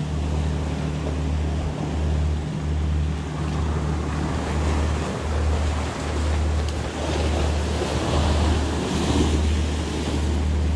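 Sea surf washing against rocks, with wind buffeting the microphone in a low, gusting rumble.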